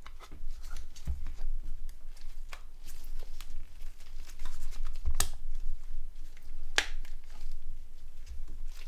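Plastic clicks and snaps of a Nokia 7210's back cover being fitted and pressed into place by hand, over light handling rustle. The sharpest clicks come about a second in, around five seconds and near seven seconds.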